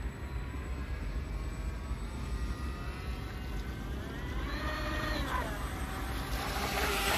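Twin Roxxy C35-36 brushless outrunner motors driving the model's TFL 29 water jets, whining faintly at a distance; the whine rises in pitch about four seconds in and drops back a second later as the throttle is opened and eased. A low rumble runs underneath, and a rushing hiss grows near the end.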